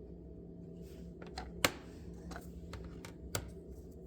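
A scattering of light clicks and taps, about half a dozen, two of them sharper than the rest, over a steady low hum.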